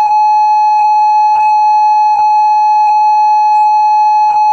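Emergency-test ringtone imitating the Emergency Broadcast System attention signal: one long, loud, steady beep at a single pitch, unbroken, with a faint low hum underneath.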